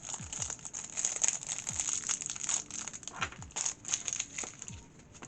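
Plastic packaging crinkling and crackling in irregular handfuls as it is handled and unwrapped by hand.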